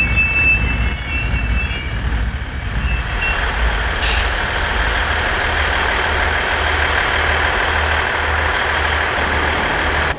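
KiHa 110 series diesel railcar moving slowly over depot tracks: a steady low diesel rumble, with a high-pitched metallic squeal of several tones over the first three seconds or so. A short hiss comes about four seconds in, followed by steady rolling noise.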